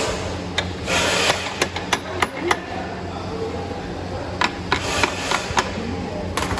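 Hand tools knocking and clicking on a Royal Enfield Classic 350's magnet cover (engine side cover) as it is unbolted and worked loose: sharp taps in two irregular runs, over a steady low hum.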